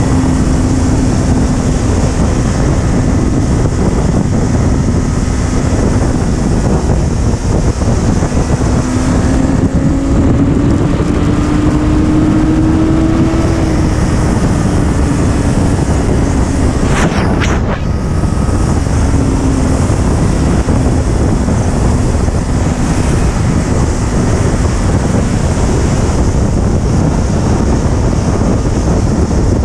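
Honda sport motorcycle cruising at highway speed: loud wind rush over the microphone with the engine's steady tone underneath. The engine note rises a little in pitch about ten seconds in, then settles. A short whoosh comes a little past halfway.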